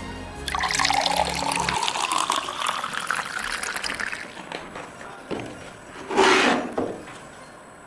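Water poured into a glass, the pitch of the pour rising steadily as the glass fills. A short, loud burst of noise follows about six seconds in.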